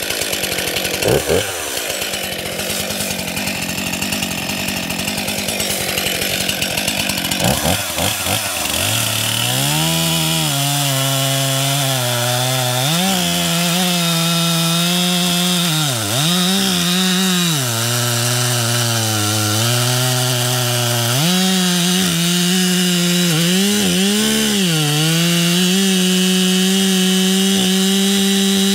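Stihl MS261C two-stroke chainsaw running at high throttle while cutting through a shagbark hickory log. The engine note is rough for the first several seconds, then settles into a steady high pitch that sags briefly a few times as the chain loads up in the wood.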